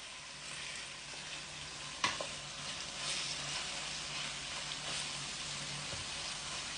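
Seasoned chicken meat sizzling as it fries in a pan over very low heat, a steady fine crackle, with a single sharp knock about two seconds in.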